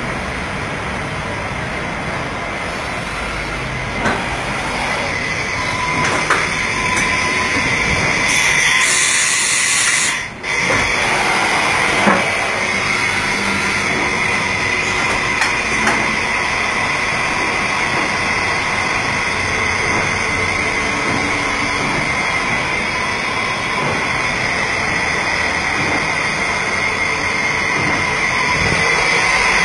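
Mitsui Seiki VT-3A CNC machining center with its BT-40 spindle running at high speed, a steady high whine over machine noise. About eight seconds in there is a burst of hiss lasting about two seconds, and a few clicks.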